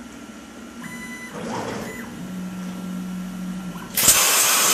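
CNC plasma table starting its cut program: a brief electronic tone about a second in, then the gantry's motors moving the torch with a steady hum. Near the end the plasma torch fires with a sudden loud, steady hiss of arc and air as it starts cutting.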